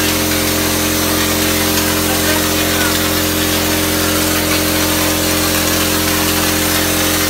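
Graco RTX 2500 texture sprayer running steadily while knockdown texture mud is sprayed from the gun onto a ceiling: a loud, even machine hum with a constant hiss of spray over it.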